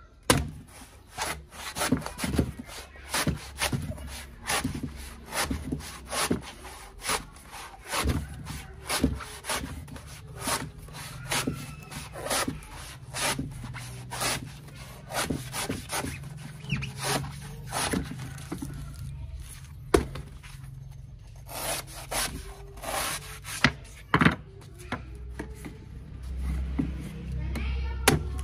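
A rusty machete blade chopping and shaving the husk of a king coconut: a long run of sharp cutting strokes, about one or two a second.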